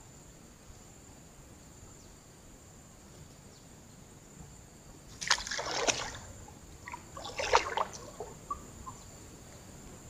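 Water splashing and sloshing as a person moves into shallow river water at the bank, in two short bouts about five and seven seconds in.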